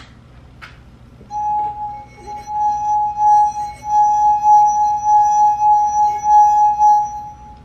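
A stemmed glass holding liquid, its rim rubbed to make it sing: one steady, clear ringing tone that starts about a second in and holds, wavering in loudness.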